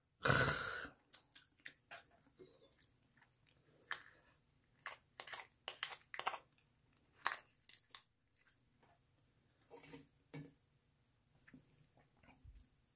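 A person eating hairy crab: irregular crunches and clicks of shell being cracked and meat chewed. It opens with a short, loud, rushing burst in the first second.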